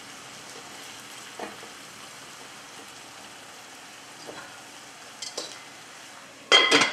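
Olive-oil base of onion and cherry tomatoes sizzling steadily in a frying pan, with a few light knocks of a utensil against the pan. Near the end comes one loud, ringing metallic clatter.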